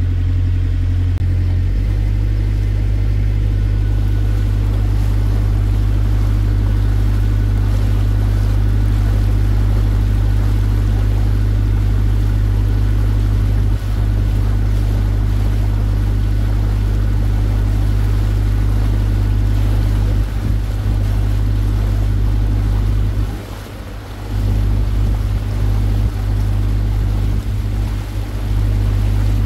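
Small passenger water taxi's engine running steadily, a low drone heard from on board while the boat cruises, easing off briefly for about a second near the end.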